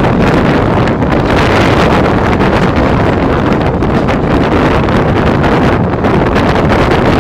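Heavy wind buffeting the microphone held out of a moving train's carriage window, a loud, steady rush over the running rumble of the train.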